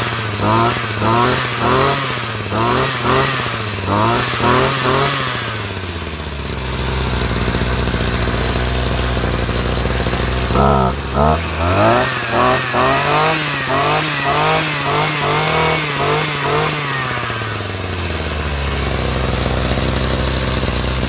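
Two-stroke brush cutter engine being revved in rapid throttle blips, its pitch jumping up and down several times a second, settling to a steady idle about six seconds in. It is blipped again from about eleven seconds and drops back to idle near the end: a throttle-response test.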